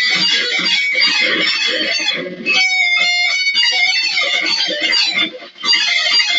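Electric guitar solo played fast in a shredding style, quick runs of notes, with a short break a little after five seconds.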